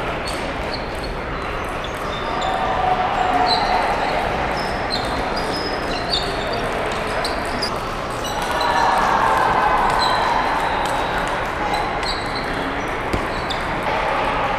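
Table tennis balls clicking off paddles and bouncing on tables, many quick ticks from this and neighbouring tables, over a steady hubbub of voices in a large, echoing hall.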